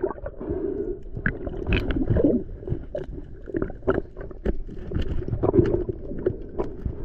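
Muffled underwater water noise, a low churning rumble, broken by irregular clicks and knocks while a speared mutton snapper is handled on the spear shaft.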